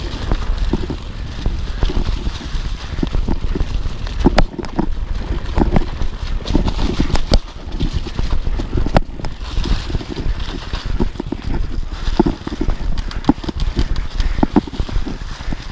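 Mountain bike descending a leaf-covered dirt trail: steady wind rumble on the microphone with tyre noise over dirt and leaves, and frequent sharp knocks and rattles from the bike over bumps, the loudest about four, seven and nine seconds in.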